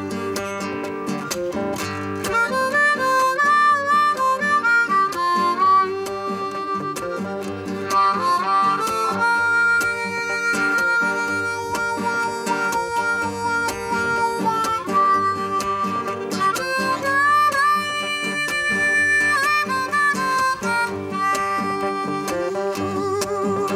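Harmonica solo in a blues song, with long held notes, slides between notes and a wavering note near the end, over two acoustic guitars strumming a steady rhythm.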